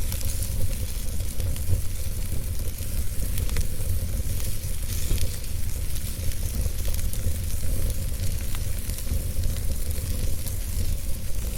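Fire crackling, with scattered small pops over a steady hiss and a low rumble.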